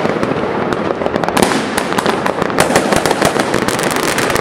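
Many fireworks going off at once: a continuous crackle of firecrackers and rocket bursts with frequent sharp bangs, growing denser about a second and a half in.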